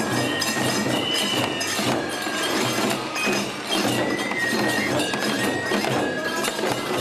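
Neputa festival hayashi music: bamboo flutes play short held notes over a steady taiko drum beat, with rapid clashing of hand cymbals (tebiragane).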